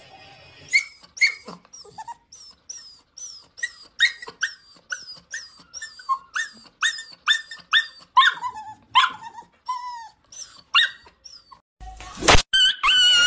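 A chow chow dog whining and yelping in a long run of short high-pitched cries that fall in pitch, about two a second. Near the end a loud knock, then a longer, steadier whine.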